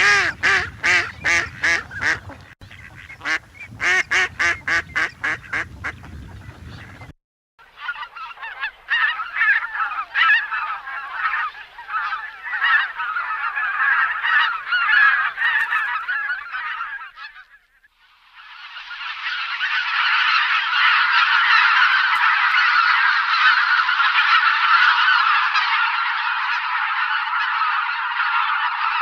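Geese honking: first a quick, regular series of honks, then after a break a flock calling over one another, and after a second short break a large flock calling continuously in a dense chorus.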